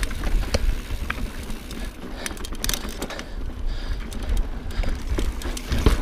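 Transition Sentinel alloy mountain bike riding down rocky slickrock singletrack: tyres rolling over rock and grit, with many sharp knocks and rattles from the bike over a continuous low rumble.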